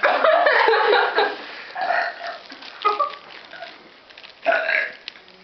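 A young woman burping on command: one long, loud burp at the start, then three shorter sounds spread over the next few seconds.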